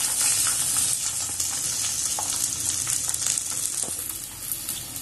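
Breadcrumb-coated chicken drumsticks deep-frying in hot oil in a kadai, sizzling steadily with many small crackles, easing slightly near the end as the pieces are done and being lifted out.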